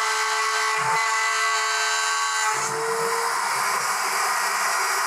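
Table-mounted wood router running at full speed, a high steady whine with a strong hum, while a small plywood piece is pushed across the bit to cut a groove. About two and a half seconds in the sound changes, with a lower rumble joining the whine.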